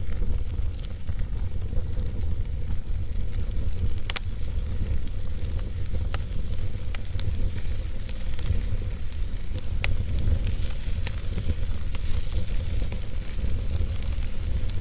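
Wood fire burning in a fireplace, crackling with scattered sharp pops over a steady low rumble.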